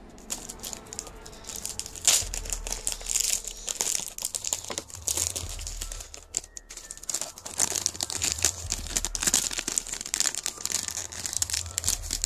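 Thin plastic shrink-wrap being torn open and crinkled off a Blu-ray case: dense, irregular crackling that pauses briefly about halfway through.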